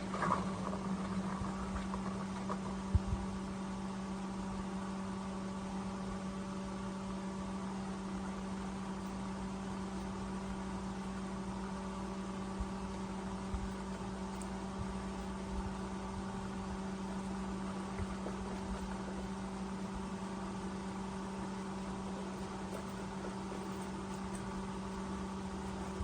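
A steady, even hum with a few faint clicks.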